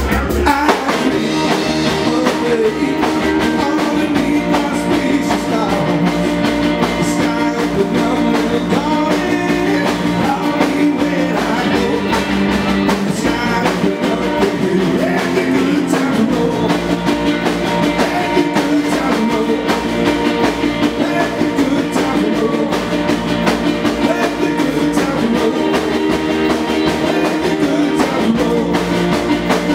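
Live rock and roll band playing: upright double bass, electric guitar and drum kit, with a man singing into a microphone.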